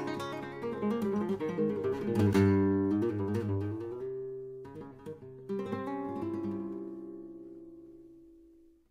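Background acoustic guitar music: picked notes and strummed chords, ending on a chord about five and a half seconds in that rings out and fades away.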